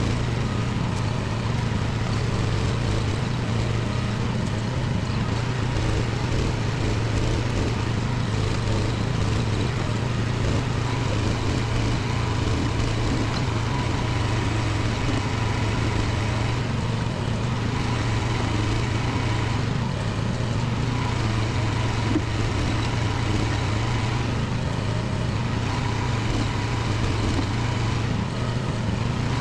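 Budget mini excavator's engine running steadily as the machine works, with one short sharp knock a little past two-thirds of the way through.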